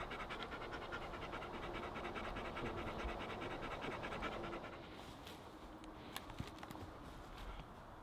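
Dog panting fast and rhythmically, several breaths a second, stopping about five seconds in. A few light clicks follow.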